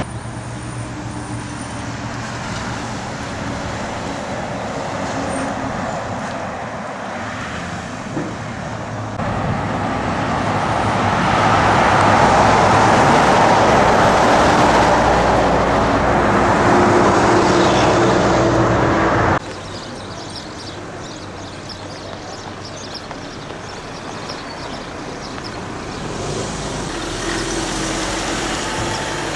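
Road traffic noise from a highway: the hiss and rumble of vehicles going by, louder through the middle stretch and dropping abruptly about nineteen seconds in.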